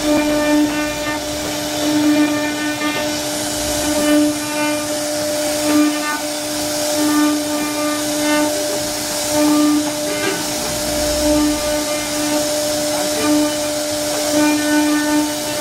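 CNC router spindle running with a steady high whine as its bit carves a floral relief into a wooden door panel, swelling and fading about once a second as the cutter works, over a hiss of cutting.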